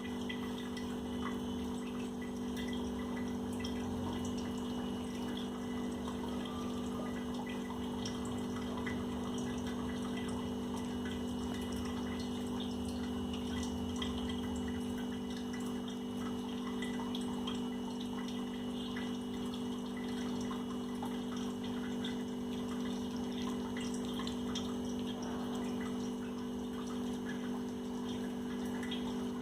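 Kitten lapping milk and chewing soaked roti: many small wet clicks and laps over a steady low electrical hum.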